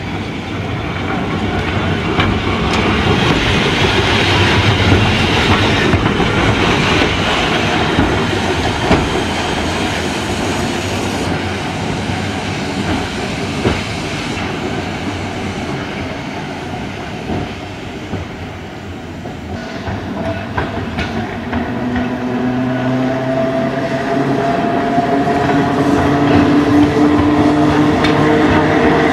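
Vintage Glasgow electric tramcars running on street track, the wheels rumbling and clattering over the rails. In the last third a tram's traction motors give a slowly rising whine as it gathers speed.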